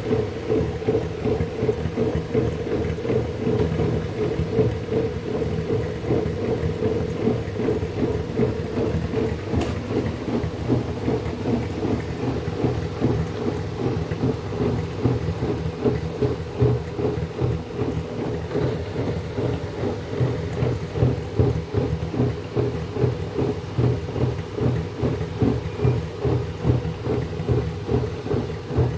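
LG F2J5WN3W front-loading washing machine running in suds lock, the state its controls enter when they detect too much detergent foam. Water and laundry churn and slosh in the drum as a steady low rumble with irregular surges.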